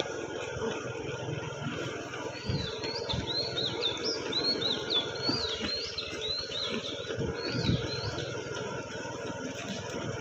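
Birds calling in short, quick, rising-and-falling whistled notes from about two seconds in until near the end, over irregular low thumps of runners' footfalls on an asphalt road and a steady background hum.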